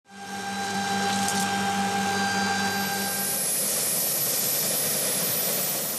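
Westland Sea King search-and-rescue helicopter running on the ground with its rotors turning: a steady turbine whine and rotor noise that fades in at the start. Its tone shifts a little past halfway, as a high thin whine comes in and the lower steady tones drop away.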